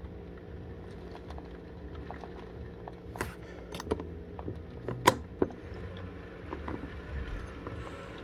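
Heavy wind-driven rain pelting a window pane, with scattered sharp taps of drops striking the glass over a steady low rush of wind. The loudest taps come about three to five and a half seconds in.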